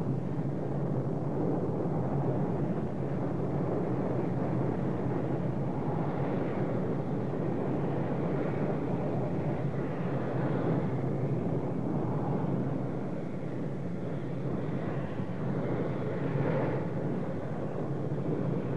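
Lava fountain erupting at Kilauea's summit: a steady, low rushing noise, with a few brief louder surges about six, ten and sixteen seconds in.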